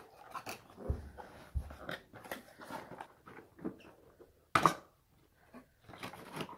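Handling and opening of a cardboard toy box with a plastic window: rustling, tapping and crinkling, with two soft thumps early and one louder, sharper scrape about four and a half seconds in.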